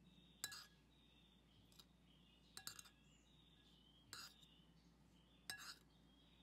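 Metal spoon and fork clinking and scraping against a ceramic plate while tossing shredded green mango salad, in four short bursts a second or so apart over a faint background.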